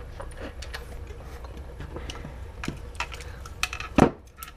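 Hands handling the plastic grip and small parts of an airsoft MP5 on a workbench mat: scattered light clicks and taps of plastic and metal, with one louder knock about four seconds in.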